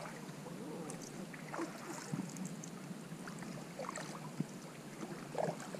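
Kayak being paddled: quiet splashes and drips of water from the paddle, with a few light knocks.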